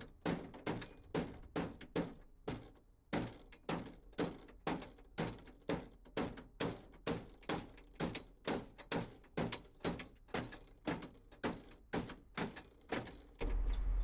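Hammer pounding on the steel rivets of a car door's window assembly to break them off: a steady run of sharp metal blows, about two or three a second, with a brief pause about two seconds in.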